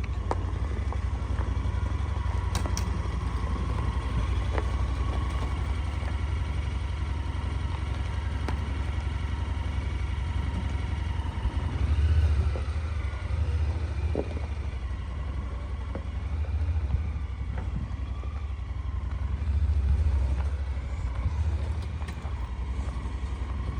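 A vehicle engine running steadily with a low rumble, swelling louder about halfway through and again near the end.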